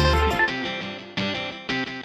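Background music: a melodic passage with a strong bass ends about half a second in, and picked guitar chords follow, each struck sharply and fading, about a second in and again near the end.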